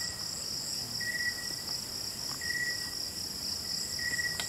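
A night chorus of crickets and other insects trills steadily and high. A lower chirp repeats about every second and a half, and there is a single sharp click near the end.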